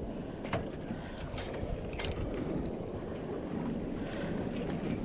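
Steady wind rushing over the microphone and water moving around a small boat, with a few light knocks about half a second, two seconds and four seconds in.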